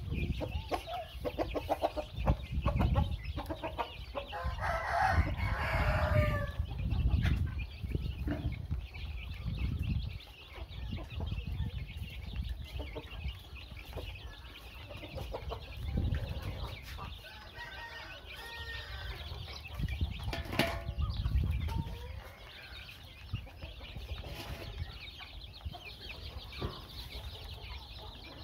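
A flock of young chickens pecking at feed, clucking and peeping steadily, with louder calls about five seconds in and again around twenty seconds.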